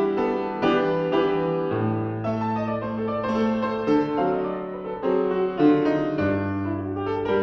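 Upright piano played solo: a melody of single notes and chords over held bass notes that change a few times.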